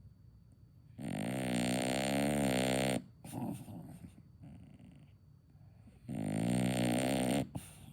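A dog snoring: two long, loud snores with a buzzing pitch, about five seconds apart, with quieter breathing between them.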